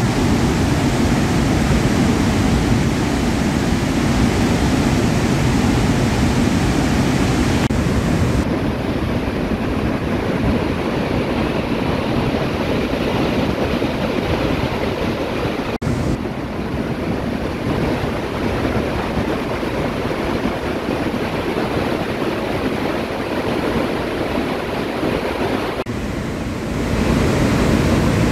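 Released floodwater rushing and churning out of the Sardar Sarovar Dam's open spillway gates in a steady, dense rush. The tone shifts abruptly a few times: it turns duller from about eight seconds in and fuller again near the end.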